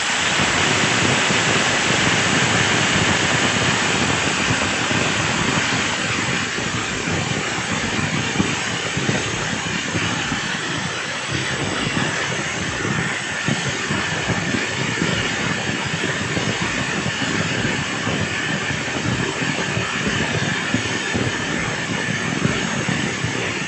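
5 kg electric demolition breaker (0810 type) running free with its motor on, hammering rapidly and steadily, after its carbon brushes were replaced.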